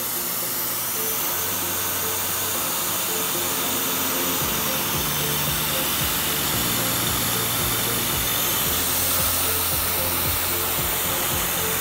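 Tormach PCNC 770 CNC mill facing aluminium with a 3/8-inch three-flute carbide end mill at 2500 rpm: a steady hiss. Background music with a stepping bass line plays under it.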